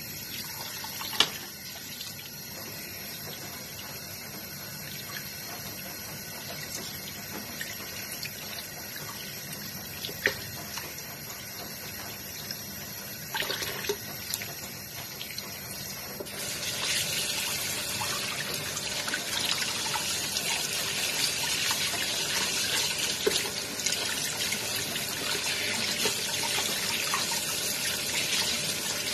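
Kitchen tap running into a stainless steel bowl while a raw chicken is rubbed and rinsed by hand, the water splashing. The water gets louder a little past halfway, and there is a sharp knock about a second in.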